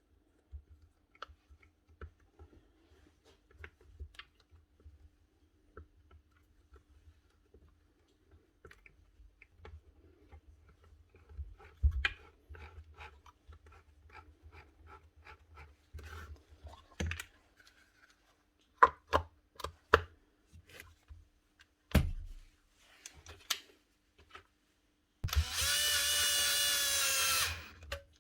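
Scattered clicks and knocks of parts and tools while a cordless planer is being reassembled, then a power tool's electric motor runs with a loud steady whine for about two seconds near the end and stops suddenly.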